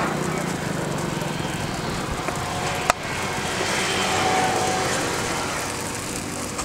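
Steady noise of road traffic, swelling as a vehicle goes by in the middle, with one sharp click about three seconds in.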